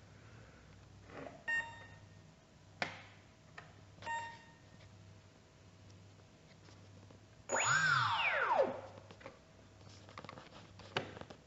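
An RC airplane's electric motor is blipped once about 7.5 s in, spinning up and winding down over about a second, its pitch rising then falling. Before it come a few clicks and two short beeps.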